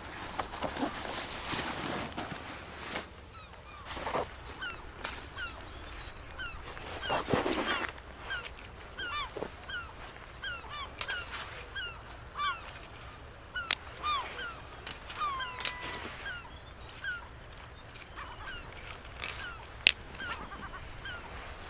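Birds calling over and over in short, quick notes. Rustling as a canvas rucksack is rummaged during the first few seconds, and a few sharp cracks from the fire in a small folding wood-burning stove.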